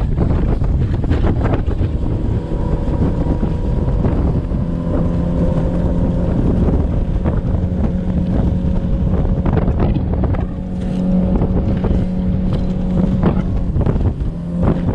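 Bass boat's outboard motor running steadily at speed with an even drone, under heavy wind rushing over the microphone.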